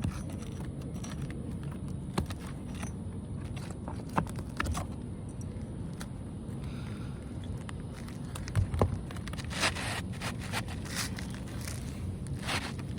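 Scraping and scattered sharp knocks of hand repair work on asphalt roof shingles, the loudest knock about nine seconds in and two longer scrapes near the end, over a steady low rumble.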